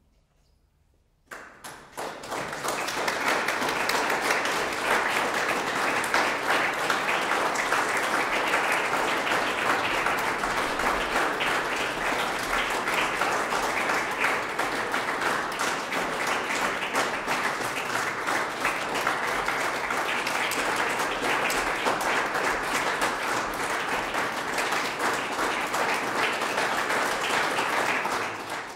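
A brief near silence, then an audience breaks into applause about a second in, with many hands clapping steadily, dying away at the very end.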